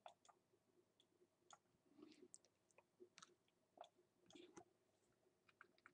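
Near silence, with faint, scattered clicks from a computer mouse being worked on a desk.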